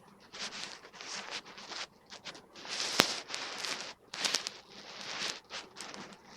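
Irregular rustling and scraping noises in quick, uneven bursts, with one sharp click about three seconds in.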